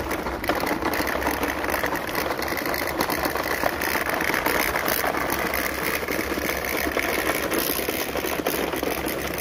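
Tenspeed 9522-3 RC car's small electric motor running steadily, with many small clicks and crackles over it.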